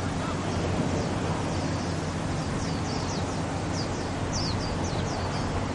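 Small birds chirping in many short, high notes that fall in pitch, thickest a few seconds in, over a steady low background rumble.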